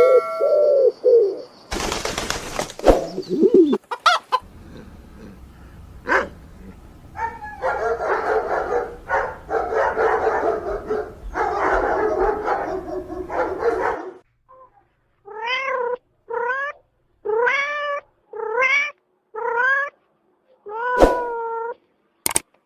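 Animal sounds: a noisy stretch with mixed calls, then a run of about seven short, high calls, each rising and falling in pitch, with short gaps between them.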